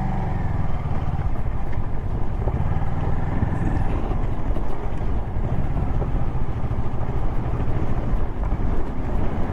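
Motorcycle engine running steadily while riding, a low pulsing drone that holds an even level throughout.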